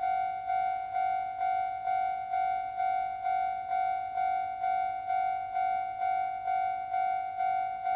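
Railway level crossing alarm ringing: one repeated ding-like tone, about one and a half strikes a second, keeping an even pace throughout.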